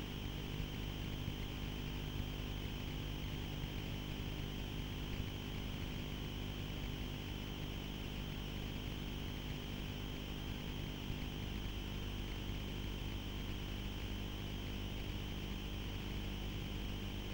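A steady, unchanging engine-like hum with a constant hiss over it.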